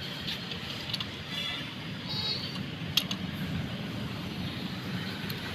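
Steady low background rumble with a few short clicks, the sharpest about three seconds in.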